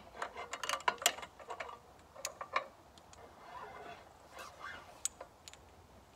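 Metal hydraulic hose fittings and quick-coupler ends clinking and rattling as the hoses are handled. There is a quick run of clicks in the first two and a half seconds, then softer rustling and a single click later.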